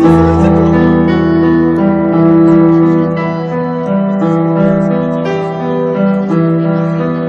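Live stage keyboard with a piano sound playing a slow run of held notes and chords, each changing about once a second, with no drums.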